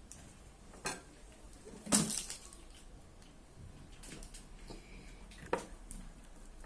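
A kitchen utensil clinking and knocking against a dish as meat filling is scooped into hollowed carrots: a few sharp clinks, the loudest about two seconds in, with softer handling noises between.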